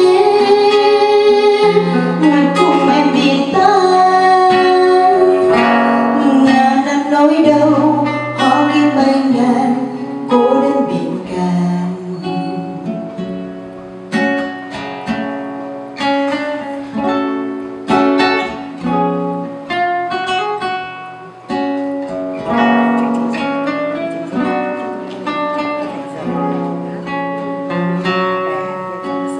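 A woman sings to acoustic guitar accompaniment for about the first ten seconds. After that the acoustic guitar plays on alone in single plucked notes that ring and fade.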